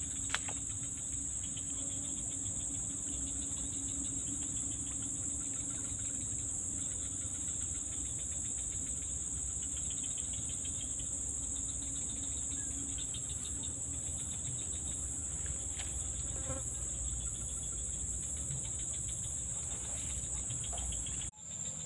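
Steady, high-pitched chorus of insects, with a low rumble underneath; it drops out abruptly for a moment near the end.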